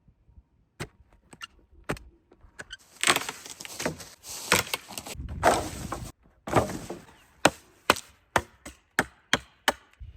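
Wood being chopped with a hand tool. There are a few scattered blows, then longer rough, noisy stretches of wood working, then a quick run of sharp strikes, about two a second, near the end.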